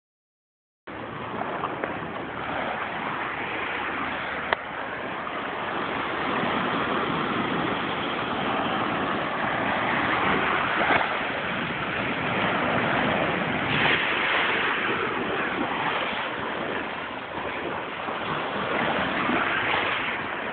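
Surf breaking and washing up the beach: a steady rushing noise that starts about a second in, with one brief click about four and a half seconds in.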